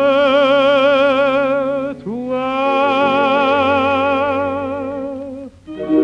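Male chanson singer holding the final two long notes of the song with wide vibrato over an orchestral accompaniment; the second note is reached by an upward slide about two seconds in. The voice stops about five and a half seconds in, and the orchestra sounds the closing chord.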